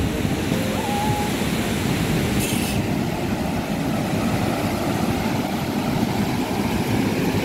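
Steady roar of water pouring through a dam's open spillway gates and churning in the channel below.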